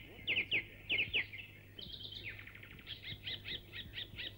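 Birds chirping: quick, high downward-sweeping chirps, at first in close pairs, then from about halfway a steady run of about four chirps a second.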